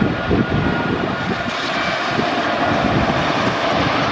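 Wooden roller coaster train running over its wooden track: a steady rumble with uneven low thumps.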